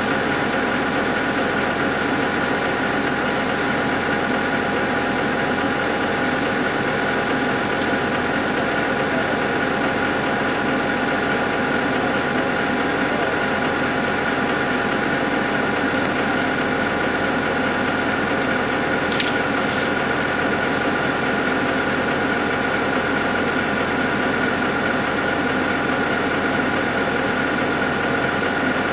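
Tractor engine running steadily, with a steady high whine over the engine note.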